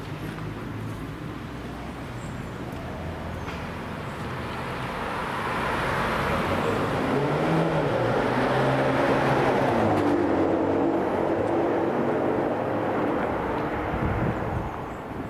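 A sports car driving past on the street, its engine and tyre noise building to a peak about halfway through and then fading away.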